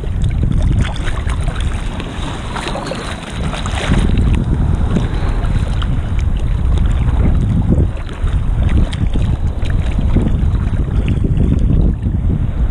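Wind buffeting the microphone and choppy seawater sloshing and splashing close by, with a heavy low rumble. It dips briefly a few seconds in.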